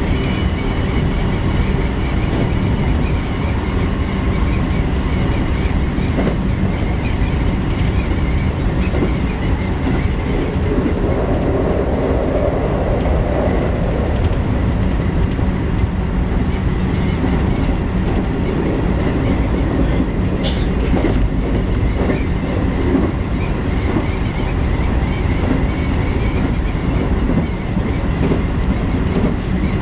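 Keikyu New 1000 series electric train with Mitsubishi IGBT inverter drive running at speed: a steady rumble of wheels on rail, with a few clicks over rail joints.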